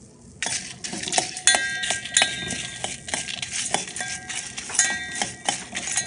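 A metal spoon stirring whole spices (chana dal, black pepper, coriander seeds and dried red chillies) roasting in a stainless steel pan: quick scrapes and clinks of metal on steel with the seeds rattling and the pan ringing. It starts about half a second in.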